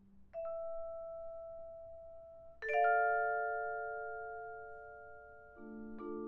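Vibraphone struck with yarn mallets, slow and sparse: a single note about half a second in left to ring, then a louder chord about two and a half seconds in that rings out and slowly fades. A lower chord enters near the end.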